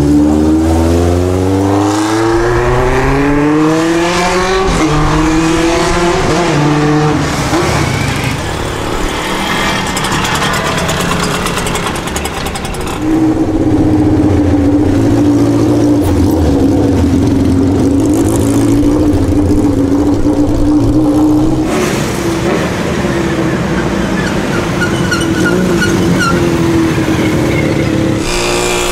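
Motorcycle engines passing one after another. The first climbs steadily in pitch as it accelerates over the opening seconds. After a dip in loudness around halfway, another holds a steady note for several seconds, and a different engine takes over in the last few seconds.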